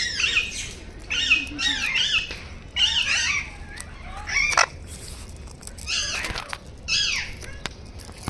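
Birds calling: about six bursts of short, harsh, repeated calls, each burst lasting under a second, with gaps between them.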